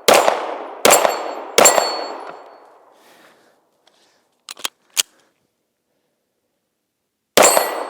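Snow-covered SIG Sauer P320 Legion pistol firing: three shots about three-quarters of a second apart, each trailing off in a long echo. A pause follows with a couple of small clicks, then a fourth shot near the end.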